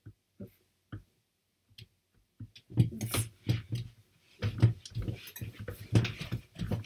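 A few scattered clicks, then from about two and a half seconds in a fast, irregular run of taps and clicks.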